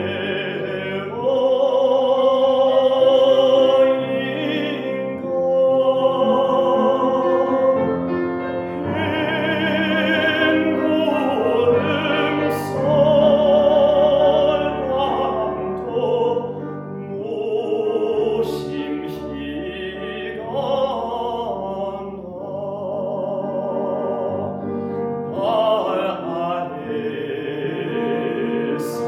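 Live classical chamber music: a slow melody in long, wavering vibrato notes, operatic in character, over piano and sustained lower tones.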